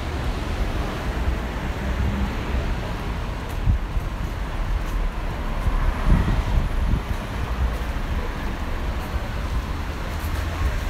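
Traffic noise from cars on a busy city street, steady throughout, with a low rumble of wind on the microphone.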